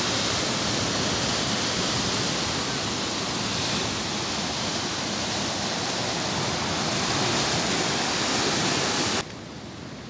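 Heavy sea surf churning and breaking over rocks, a dense, steady rush. It cuts off suddenly about nine seconds in, leaving a quieter wash of waves.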